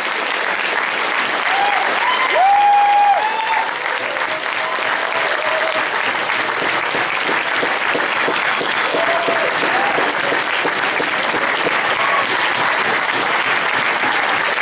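A large audience applauding steadily for a long stretch. A few voices shout above the clapping, loudest about two to three seconds in.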